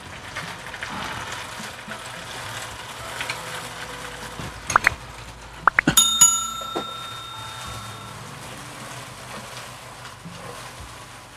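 A subscribe-button sound effect: a few quick clicks, then a bright bell ding about six seconds in that rings for about two seconds. Under it is the soft scraping and bubbling of a plastic spatula stirring sauce thickened with cornflour in a wok.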